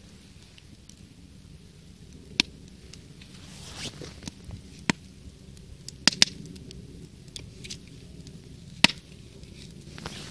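Log-candle campfire burning, with occasional sharp pops from the wood, about five loud ones and fainter ticks between them. The popping is typical of conifer wood such as spruce and pine.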